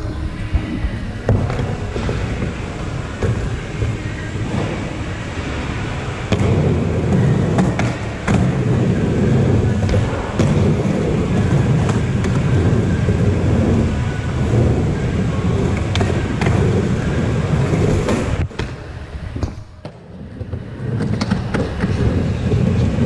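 Skateboard wheels rolling on a skatepark ramp, a steady low rumble with sharp clacks of the board here and there. The rolling drops away briefly about three-quarters of the way through, then picks up again.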